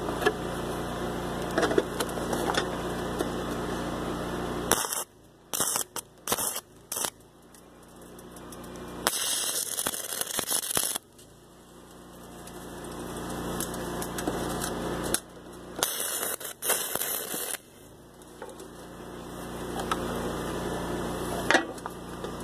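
Stick-welding arc crackling and hissing as the electrode welds thin EMT tubing to a steel base plate: a few short strikes, then a longer crackling run about 9 seconds in, and more bursts near the 15-second mark. The arc tends to blow holes in the thin tubing, and the welder's current is hard to set right.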